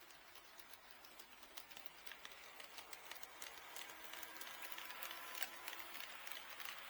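HO scale model train running on KATO Unitrack, its wheels clicking irregularly over the rail joints with a faint motor whine, getting louder as it approaches.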